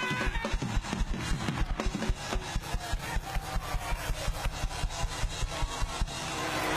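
Fast praise-break church music, driven by an even, rapid drum beat of about five or six hits a second with a deep thump under many of them.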